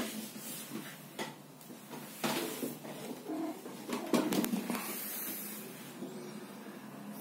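A heavy cat jumping down from a wooden table onto a chair and then the floor: a series of knocks and thumps, the loudest about four seconds in.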